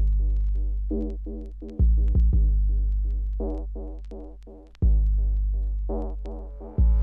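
Electronic drum and bass music. Deep sub-bass notes strike about every two to three seconds and slowly fade. Above them a quick, even synth pattern repeats, with light high ticks.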